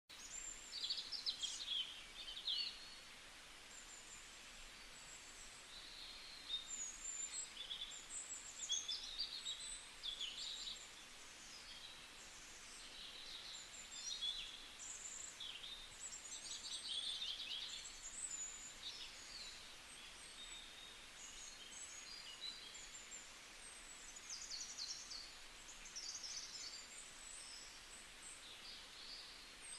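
Small birds chirping and trilling, with many short calls and quick trills overlapping over a faint steady hiss.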